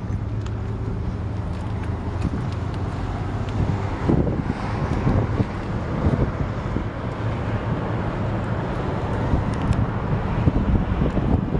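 A car engine idling steadily under wind buffeting the microphone; the gusts set in about four seconds in and come and go.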